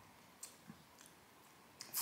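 A few faint, short clicks against quiet room tone: mouth and lip sounds of someone tasting and swallowing a sip of lemon-lime soda.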